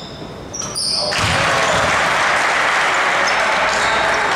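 Basketball game in an arena: short high sneaker squeaks on the court in the first second, then loud crowd noise that rises about a second in and holds.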